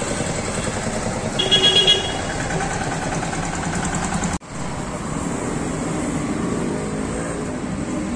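Steady road traffic noise, with a vehicle horn honking briefly about a second and a half in.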